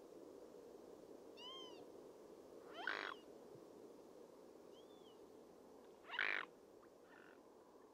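Two short, harsh animal calls about three seconds apart, with a faint arched whistled note before each, over steady low background noise.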